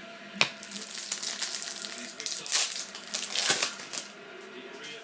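Plastic wrapper of a trading card pack being torn open and crinkled: a sharp crackle about half a second in, then uneven crinkling for about three seconds that stops near four seconds in.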